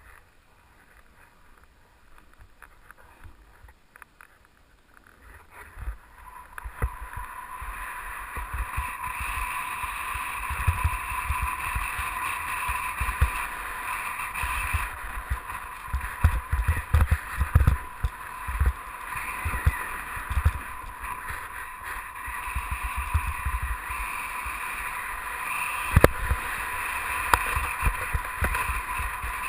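Snowboard sliding and scraping over snow during a downhill run, a steady hiss with wind rumbling in gusts on the microphone. It is quieter for the first several seconds, before the board picks up speed.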